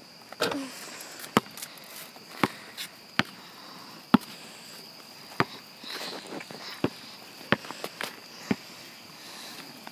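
Crickets chirping in a steady high drone, with scattered sharp taps or clicks close by, about one a second at uneven spacing.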